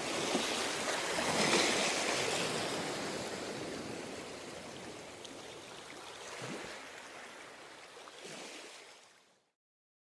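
Ocean waves washing on a shore, the biggest wash about a second and a half in and smaller ones later, fading away and cutting to silence near the end.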